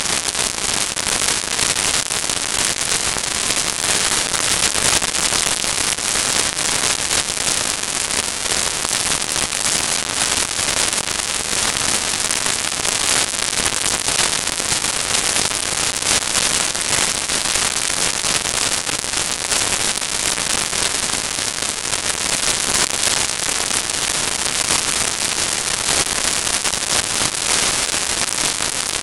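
Live band music so loud that the recording microphone overloads: it comes through as a steady crackling, hiss-like roar with no clear tune or beat.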